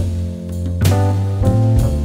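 Instrumental background music: held low bass and chord notes, with drum hits on the chord changes about a second in and again near the end.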